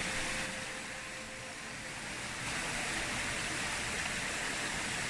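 Shallow stream water running steadily over rocks in a small riffle.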